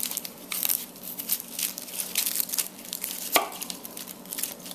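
Kitchen knife cutting a raw onion held in the hand: an uneven run of short, crisp crunching cuts, with one sharper click about three and a half seconds in.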